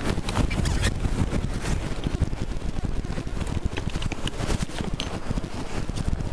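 Wind buffeting the microphone aboard a heeled sailboat under way, over the rush of water along the hull, with many small rustles and knocks close to the microphone.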